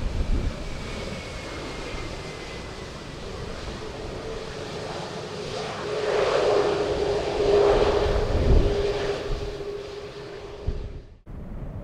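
Jet airliner passing close by: engine noise with a steady whine that swells to its loudest about halfway through, then cuts off abruptly near the end.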